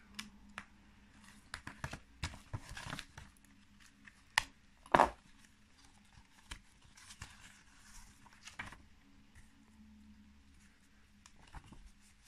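Yellowed pages of an old, falling-apart book being handled and turned: soft paper rustles and scattered light clicks, with a sharper, louder crackle about five seconds in.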